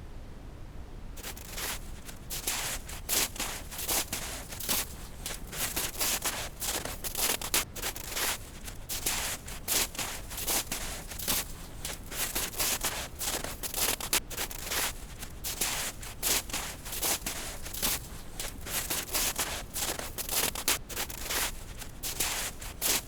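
Footsteps crunching through snow at a steady walking pace, about two steps a second, starting about a second in over a continuous brown-noise rush.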